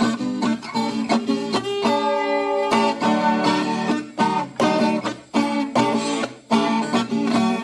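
Instrumental moda de viola caipira: a Brazilian ten-string folk guitar plucked in quick, rhythmic runs of notes, with a chord let ring for a moment about two seconds in.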